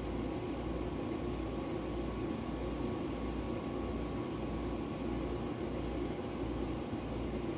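A steady electrical hum and whir from kitchen appliances, with a low throb pulsing just under twice a second.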